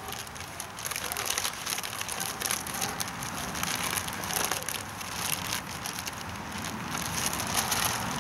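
Clear plastic bag crinkling and rustling without pause as hands knead it, mixing baking mix and evaporated milk into a batter inside.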